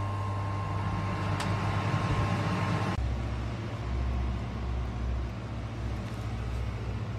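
Steady electrical hum of a running fiber laser welding machine and its cooling fan, with a high steady tone over it. About three seconds in it cuts off abruptly to a lower, uneven rumble.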